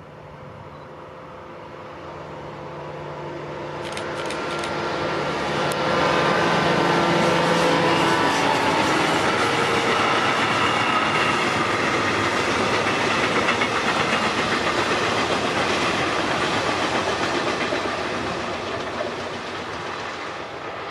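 Diesel locomotive of a work train approaching and passing, its engine drone growing louder, followed by heavy flat wagons carrying rail cranes rolling by with wheel clatter on the rails. The sound fades as the train moves away.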